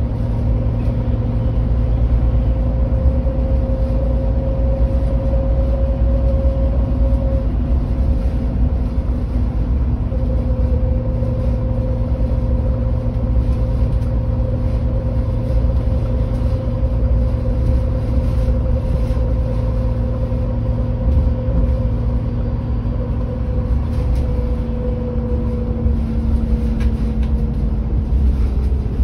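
MAN Lion's City 12C EfficientHybrid city bus standing with its diesel engine idling: a steady low rumble with a constant humming tone above it.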